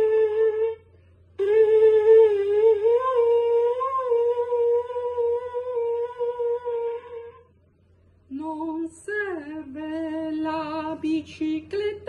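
A melody in long held notes played on a small wind instrument held to the lips, with a short break about a second in, stopping at about seven and a half seconds. After a brief pause a woman sings a lower melody.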